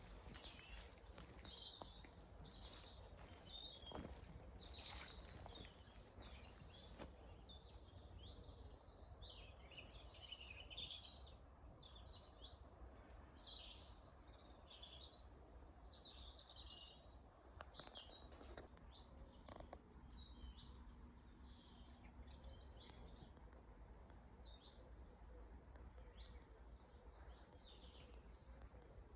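Small woodland birds chirping, many short high calls coming one after another, faint, over a low steady rumble, with a few soft clicks.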